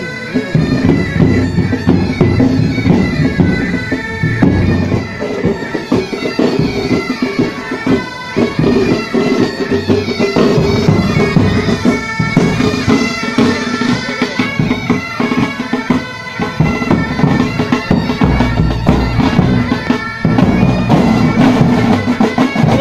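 Military pipe band playing: Great Highland bagpipes sound a tune over their steady drone, with the band's drums beating along.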